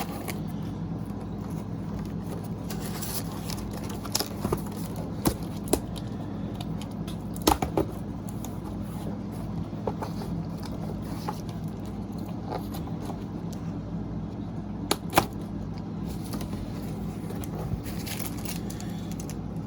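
Cardboard packaging of a replacement laptop screen being opened by hand: scattered clicks, scrapes and tearing at irregular intervals, over a steady low background hum.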